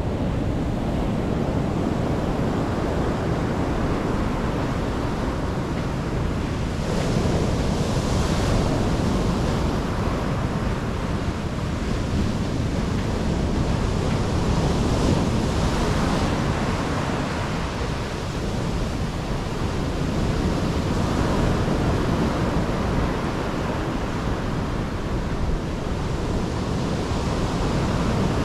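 Mediterranean waves breaking on the shore, a steady wash with hissing surges that swell every several seconds. A low rumble of wind on the microphone runs underneath.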